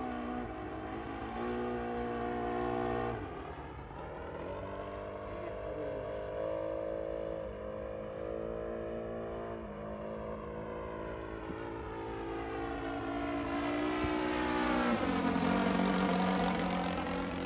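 Engine and propeller of a 1:6 scale radio-controlled F8F Bearcat, an O.S. GF40 four-stroke petrol engine, in flight on its landing approach. The pitch steps up and down several times as the throttle changes. It is loudest as the model passes close about fifteen seconds in, when the pitch drops.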